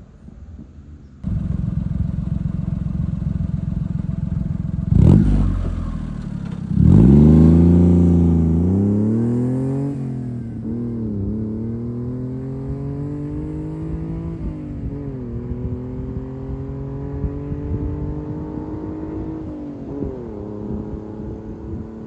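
A Honda Acty kei mini truck's small three-cylinder engine, breathing through a Giga N1 aftermarket exhaust, passes close by and accelerates away. It is loudest as it goes past, a few seconds in. Then the engine note climbs in each gear and drops back at three upshifts as the truck pulls away.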